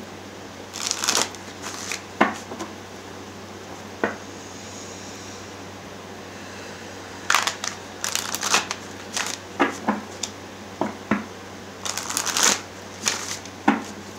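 Tarot deck shuffled by hand, an overhand shuffle: papery rustles and light taps of cards sliding and dropping onto the deck. A few scattered bursts in the first seconds, then almost continuous shuffling from about halfway through.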